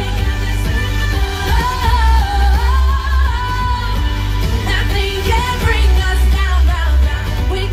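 Live pop song played loud through a PA: a woman sings a wavering melody over amplified backing music with heavy, pulsing bass.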